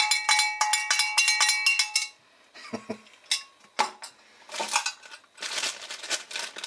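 Small metal slingshot targets rattled and knocked together, clinking and ringing with clear bell-like tones for about two seconds. A few separate knocks follow, then rustling as they are handled.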